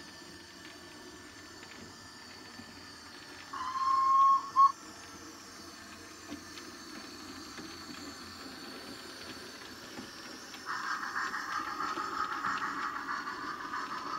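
A sound-fitted 00 gauge model steam locomotive gives one short steam-whistle blast of under a second, then a brief second toot, over the low rumble of model trains running on the track. A steady hiss of steam sound starts near the end.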